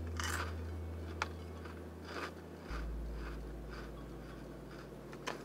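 A person chewing a mouthful of crunchy cornmeal onion-ring snacks (Andy Capp's Beer Battered Onion Rings), a crunch every half second or so, with a couple of sharper clicks. A steady low hum sits underneath.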